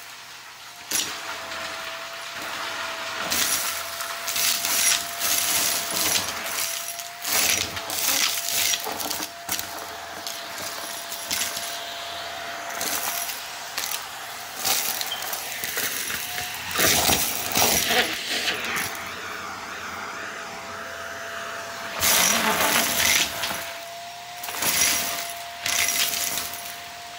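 Vacuum cleaner running with a steady whine while picking up scattered dry debris, which rattles and clatters through the cleaner head and tube in repeated bursts.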